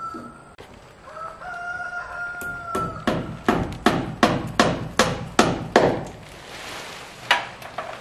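A rooster crows once, a long held call starting about a second in. It is followed by a run of about eight hammer strikes, two or three a second, fastening house wrap to wooden gable framing, and one more strike near the end.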